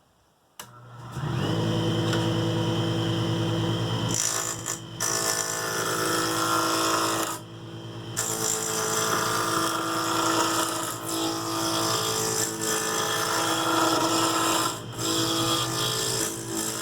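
Wood lathe starting up and running steadily, with a round nose scraper shear-scraping the corners of a spinning Alaska yellow cedar spindle. There is a click just before the motor comes up about a second in, and a brief dip in the sound about seven seconds in.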